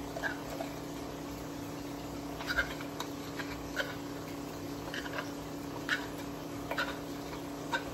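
Scattered light clicks and taps of kitchen utensils against dishes as mashed garlic is spooned onto raw pork in a glass baking dish, over a steady low hum.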